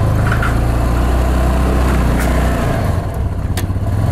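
Yamaha side-by-side UTV on snow tracks, its engine running steadily under load as it drives up onto a trailer, the engine note easing about two-thirds of the way through. Two sharp clanks come from the tracks and trailer along the way.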